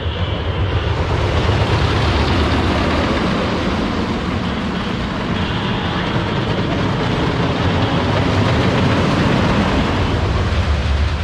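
Wooden roller coaster train running over its timber track with a loud, steady rumble and clatter of wheels, the cars going round without riders.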